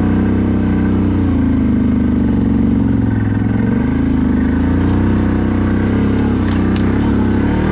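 CFMoto 1000 ATV's V-twin engine running while riding, its pitch rising and falling with the throttle. A few sharp clicks near the end.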